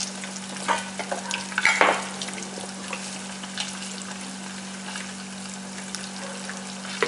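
A metal serving spoon scraping and clinking against a stainless steel mixing bowl a few times in the first two seconds, with a faint tick near the end. A steady hiss and a low hum run underneath.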